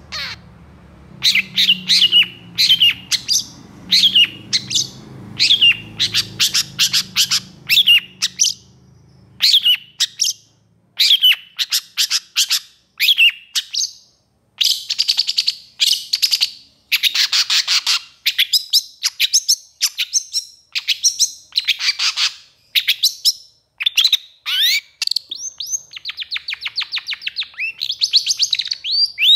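Long-tailed shrike (cendet) singing in full, agitated voice: quick strings of sharp, downward-sweeping whistled notes broken by harsher, scratchy chattering phrases, in rapid bursts with short pauses between them.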